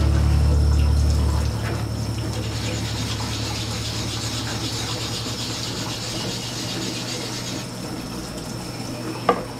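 Kitchen tap running, its stream of water splashing over hands and into a stainless steel sink, with one short click near the end.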